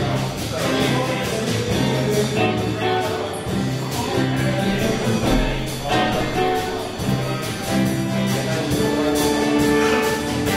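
A live band playing, with electric guitars, bass guitar and drum kit; regular drum hits under held melody notes.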